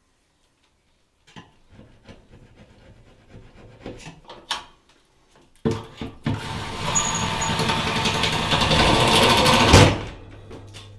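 Scattered knocks and handling clicks, then a power tool runs for about three and a half seconds, getting a little louder, and cuts off abruptly, leaving a low hum.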